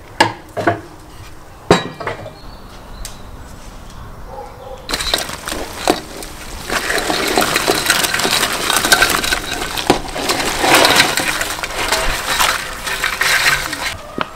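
Raw crayfish tipped from an enamel bowl into a pot of boiling water: a dense, crackling clatter of shells against the bowl and into the boil that builds up from about five seconds in. Before it come a few sharp clinks.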